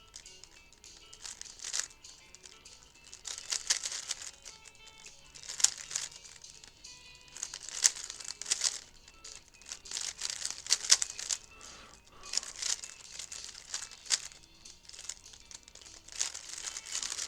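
A 3x3 speed cube being turned rapidly, its plastic layers clicking and clattering in irregular flurries, with faint music underneath.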